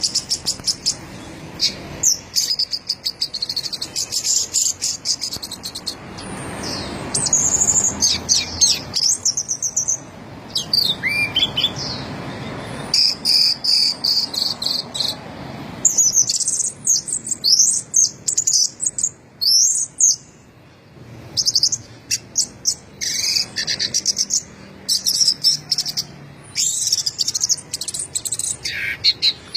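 Orange-headed thrush (anis merah) singing continuously: a long run of quick, varied high-pitched phrases and chirps, separated by short pauses.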